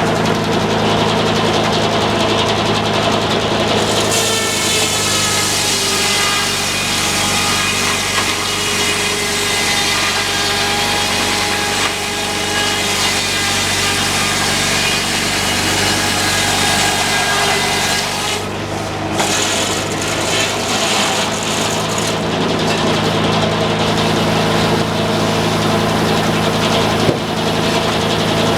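Sawmill engine running steadily. From about four seconds in, the saw cuts through wood with a high, ringing whine over the engine, then stops cutting about two-thirds of the way through while the engine runs on.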